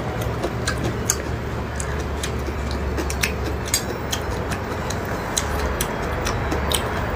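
Close-miked chewing of raw fish slices: scattered, irregular wet clicks and smacks from the mouth, over a steady low hum.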